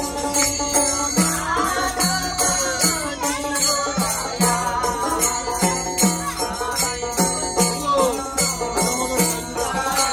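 Devotional kirtan: several voices singing together over a steady beat of small hand cymbals and a hand drum, with a plucked stringed instrument.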